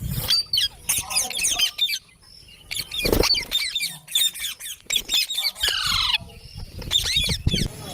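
Ringneck parrots squawking and chattering in quick, high-pitched calls, with one call sliding down in pitch near the six-second mark.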